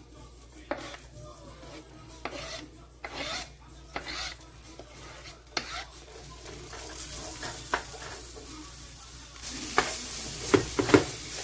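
Sliced sweet peppers and onion scraped off a plastic cutting board into a nonstick frying pan, with scattered scrapes and taps. The vegetables then start sizzling, louder near the end, as a wooden spoon stirs them and knocks against the pan.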